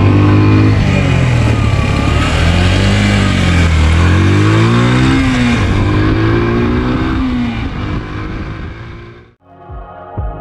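Motorcycle engine accelerating through the gears, its pitch climbing and then dropping at each shift, with wind rushing over the microphone. About nine seconds in it fades and cuts off, and background music with a soft beat starts.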